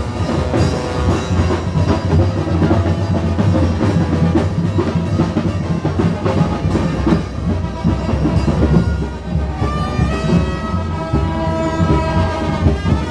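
A street band of brass and drums playing loudly, with held brass chords in the last few seconds.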